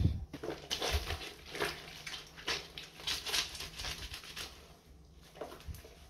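Clothes being hand-washed in a plastic basin of soapy water: wet fabric sloshing and squelching as it is rubbed and squeezed, in irregular strokes, with a quieter pause about four seconds in.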